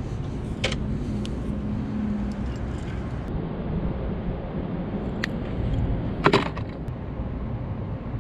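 Steady low outdoor rumble, with a few light clicks and a louder clatter about six seconds in as fishing tackle and pliers are handled at a truck tailgate.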